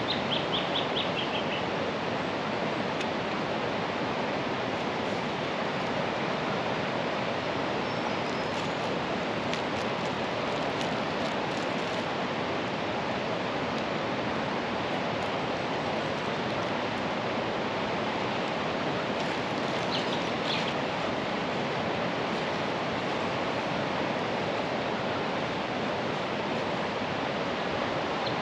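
Steady rush of a swollen river running high after rain. Over it a bird calls briefly three times, a short run of falling chirps each time: at the start, about twenty seconds in, and at the end.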